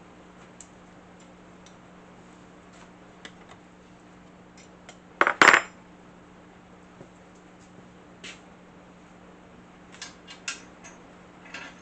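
Metal tools and hardware clinking and clattering while a motor is unbolted from a table saw: light ticks and clicks, a loud rattling clatter of metal on metal about halfway through, and a few more clinks near the end, over a faint steady hum.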